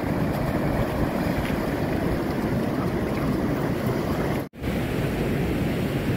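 Ocean surf washing on the beach with wind buffeting the microphone, a steady rush. The sound cuts out for an instant about four and a half seconds in.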